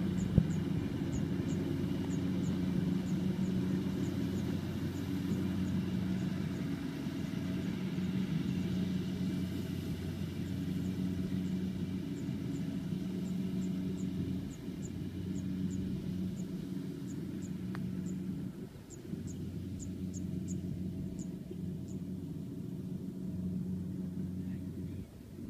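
Rice combine harvester's engine running with a steady hum as it works the paddy. A rapid series of short, very high chirps comes and goes over it.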